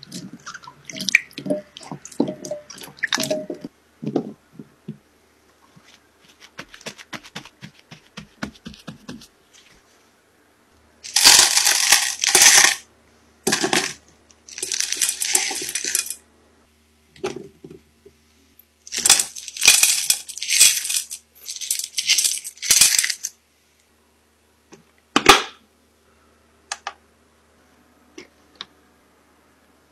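Food-preparation sounds: quick clinks and knocks of utensils and a knife on a board, broken by several loud bursts of running water spraying. A single sharp knock comes near the end.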